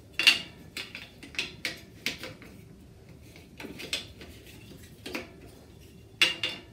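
Metal drill and driver bits clinking and rattling in a plastic bit case as someone picks through it: a string of irregular short clinks, loudest just after the start and again near the end.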